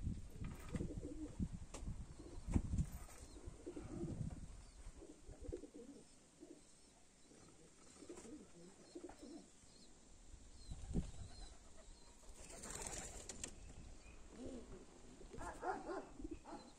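Domestic pigeons cooing softly and repeatedly, with low rumbles in the first few seconds.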